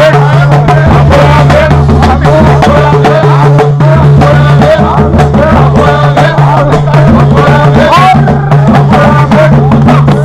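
Loud live Algerian folk music: karkabou iron castanets clattering in a fast, continuous rhythm together with drums, under a wavering melody line.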